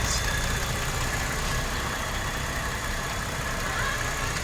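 Mercedes-Benz CLS 350's V6 petrol engine idling steadily, running on its repaired ME9.7 engine control unit after a no-crank, no-start fault.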